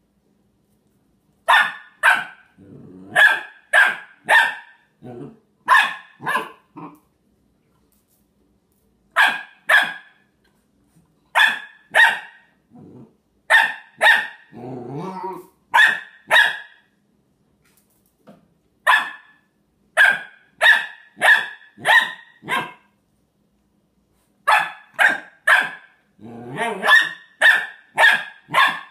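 A three-month-old Australian Shepherd puppy barking at a shot glass: short, sharp barks in quick clusters of two to five, with pauses of a second or two between them. A few low growls come between some of the clusters.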